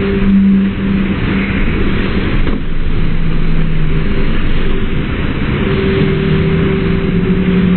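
Slowed-down recording of a standing-wave surf pool's rushing water: a deep, steady rumble with low droning tones that shift in pitch every second or two.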